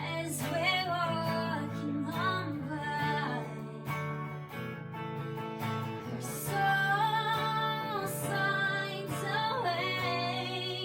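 Music: acoustic guitar strumming under a female voice singing a melody in two phrases.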